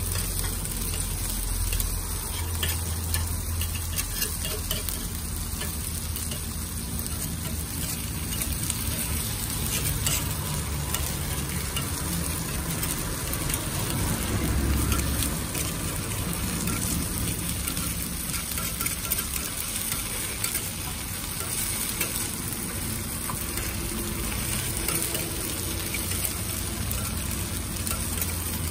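Takoyaki sizzling in the wells of a takoyaki griddle, with light clicks of a metal pick turning the balls, over a low hum.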